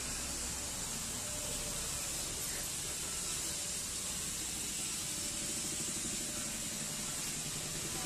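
Steady hiss with a low hum underneath, and faint indistinct voices in the background.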